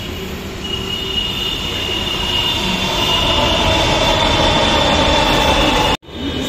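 Delhi Metro train pulling into an elevated station platform, its running noise growing louder with a high, steady squeal from the wheels as it slows. The sound breaks off suddenly near the end.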